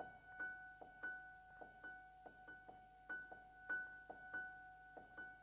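Faint intro music: soft piano or electric-piano notes in a repeating pattern, about two notes a second over held tones.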